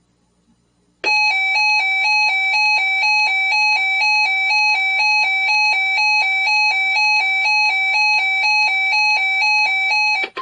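Electronic weather-alert alarm: a buzzy two-tone warble that alternates rapidly between two pitches. It starts about a second in, stays loud and even, and cuts off just before the end. It signals an incoming weather alert.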